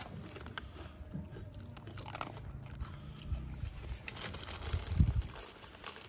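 Dog chewing and crunching a piece of crunchy food, with irregular crunches and one louder bite about five seconds in.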